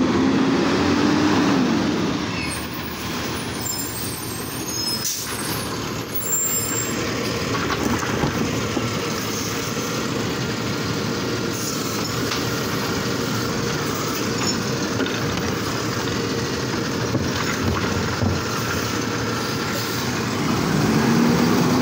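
Automated side-loader garbage truck working a curbside pickup: its diesel engine revs as the hydraulic arm grabs and lifts a wheeled trash cart. The engine rises in pitch at the start and again near the end, with a steady thin whine through the middle.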